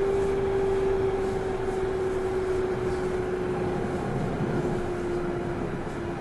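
Running sound inside the motor car of a 213 series electric train: a steady whine from the traction motors and gears over the rumble of wheels on rail. The whine slowly falls in pitch, so the train is losing speed.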